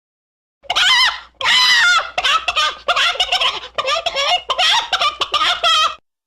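Chicken-like clucking and squawking calls, rapid and high-pitched, running in a loud string of about five seconds that starts and stops abruptly.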